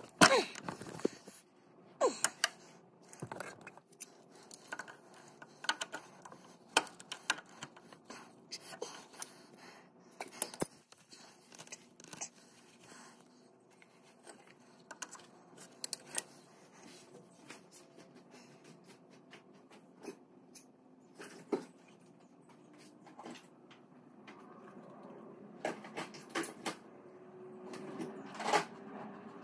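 Irregular clicks and light metal knocks of hand tools and fingers working at the hydraulic oil filter on the underside of a John Deere 2025R tractor, during a hydraulic oil and filter change. A faint steady hum comes in over the last few seconds.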